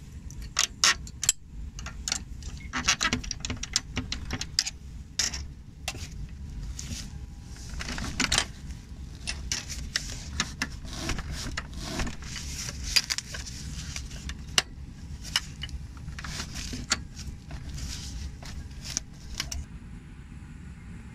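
Metal clicks and clinks of a screwdriver and aircraft seat-frame hardware being worked, densest in the first few seconds, with cloth rustling in the middle as the seat cover is handled, over a steady low hum.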